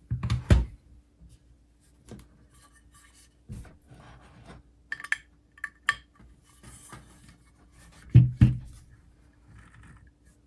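Scattered handling noises on a desk: a few heavy low thumps, the loudest near the start and about eight seconds in, with a few sharp light clicks in between. Over them runs a faint steady hum.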